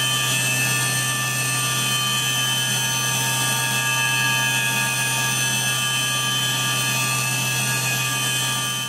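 Syil X7 CNC milling machine's spindle running at speed while its tool cuts an aluminium 6061 bracket under flood coolant. The sound is a steady whine made of several high tones over a hiss.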